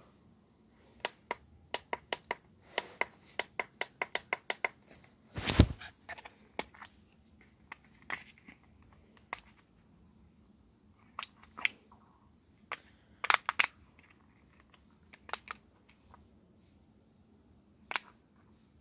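Sharp plastic clicks of remote-control buttons being pressed, including a quick run of about four a second a few seconds in, then scattered single presses, with one heavier handling knock about five and a half seconds in.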